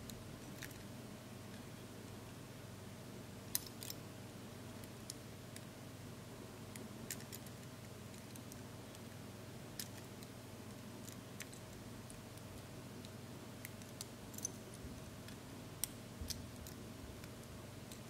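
Lock pick and tension wrench working the pins of a laminated steel padlock: scattered, irregular small metallic clicks and taps, over a steady low hum.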